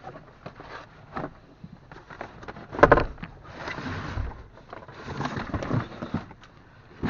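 Knocks, clicks and scraping from old strut and shock parts being handled, with one loud clunk about three seconds in.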